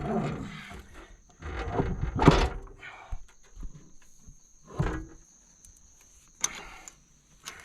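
Metal knocks, clunks and scraping as a spare wheel hub assembly is worked onto a boat trailer's axle. A longer grinding scrape comes about two seconds in, and a few shorter knocks follow.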